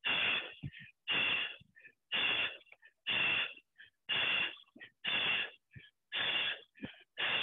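A person breathing hard with exertion: a forceful exhale about once a second, each followed by brief small sounds, in a steady rhythm.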